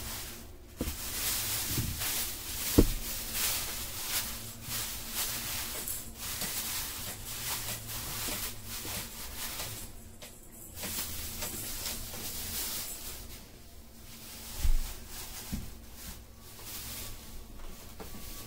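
Thin plastic produce and grocery bags rustling and crinkling as groceries are handled and laid out, with a couple of sharper knocks, about three seconds in and near fifteen seconds.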